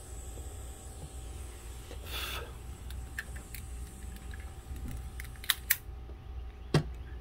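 Small clicks and taps of hand work on a freshly soldered LED-strip wire joint, with a short hiss about two seconds in and two sharp clicks about five and a half seconds in, after which a faint high whine stops; a steady low hum runs underneath.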